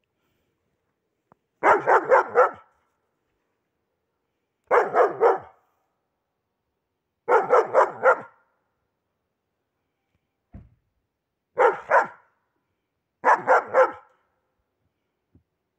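A dog barking in five volleys of three or four quick barks each, with pauses of a second or two between volleys.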